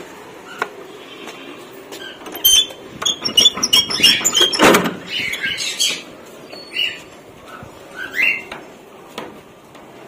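Lovebirds giving short, high chirps in a quick run about three seconds in, about three a second, with more single calls near seven and eight seconds. A loud clatter sounds just before five seconds.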